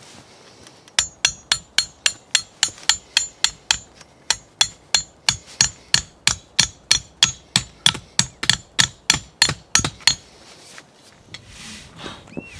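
A rapid, even series of about thirty sharp metallic knocks, three to four a second, that starts about a second in and stops about ten seconds in.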